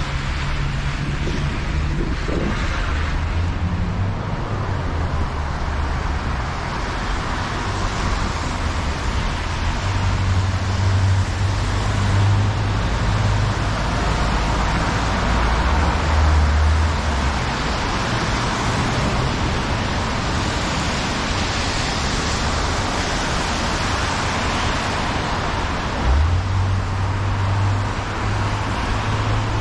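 Steady rush of wind buffeting the microphone and tyre noise on wet, slushy pavement from a moving bicycle, with road traffic, low rumbles swelling and fading. A short low bump near the end.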